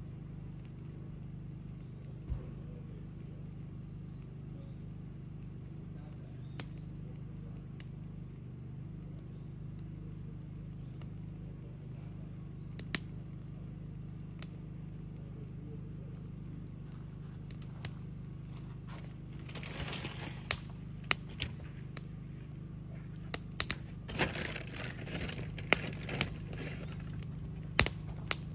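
Wood fire catching in a steel fire pit: a few scattered crackles at first, then from about two-thirds through a rush of hiss and frequent sharp pops as the flames take hold. A steady low hum runs underneath.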